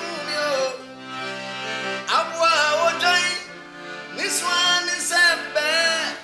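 Piano accordion playing sustained chords, with a voice singing over it in two long gliding phrases, the first about two seconds in and the second from about four seconds.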